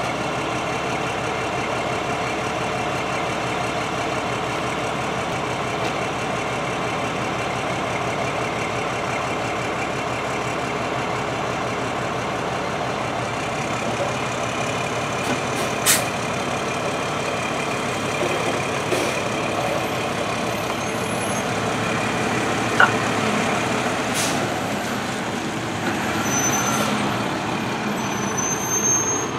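Large diesel fire engine idling steadily close by, with a few sharp clicks and knocks along the way. Near the end an ambulance drives slowly past, the sound swelling a little, with a couple of brief high squeals.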